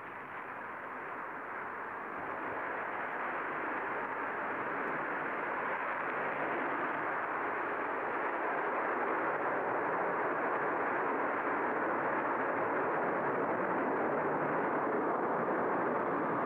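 Concorde taking off, its four Olympus 593 turbojets giving a steady rushing jet noise that grows louder over the first several seconds, then holds.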